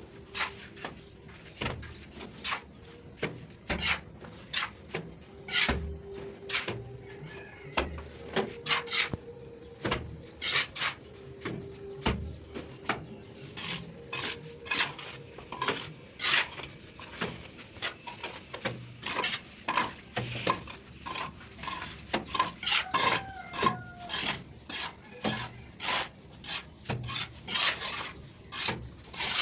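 Mason's trowel scraping and striking cement-sand mortar on a brick wall, in many short irregular strokes, several a second.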